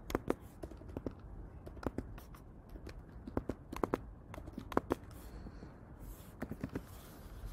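Computer keyboard keys clicking at an irregular pace as text is typed, many short taps with uneven gaps between them.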